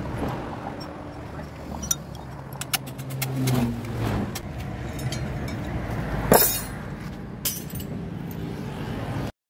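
Metal tools and gearbox parts clinking as a truck transmission is worked on by hand, with scattered light clinks and one sharp metallic clank about six seconds in. A low rumble of road traffic runs underneath, and the sound cuts off suddenly near the end.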